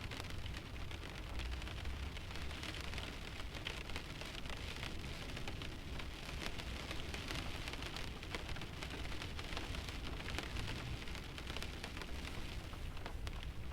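Rain falling on the windshield of a parked car: a steady patter of many small drops tapping the glass, with no engine or road noise.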